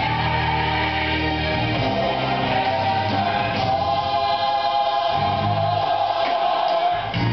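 Gospel choir music playing, the choir holding long sustained notes over a bass line.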